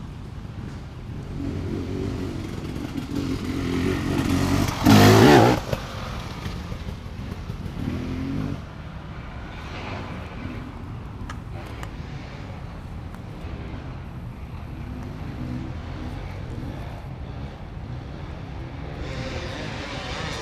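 Off-road motorcycle engines running and revving, with a short, very loud burst of noise about five seconds in, then a quieter steady engine rumble for the rest.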